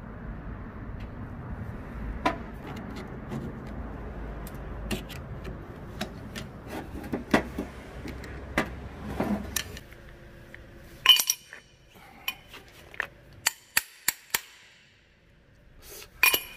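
Small metal parts and hand tools clinking and tapping during disassembly, as scattered sharp clicks. A steady low hum sits under the first ten seconds or so, then stops, and a quick run of clinks follows.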